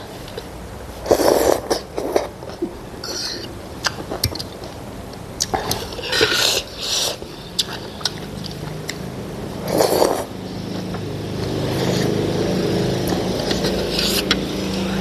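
Eating noodle soup: short slurps and mouth sounds with a metal fork and spoon clicking against a ceramic bowl. From about two-thirds through, a steady low hum comes in underneath and grows louder.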